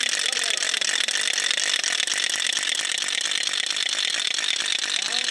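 Wooden ratchet rattle being swung by hand: a fast, steady, dry clatter of rapid clicks.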